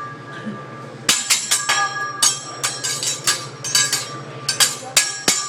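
Hibachi chef's metal spatula and knife clanging in a quick, uneven rhythm, about four strikes a second, each strike ringing on. The clanging starts about a second in.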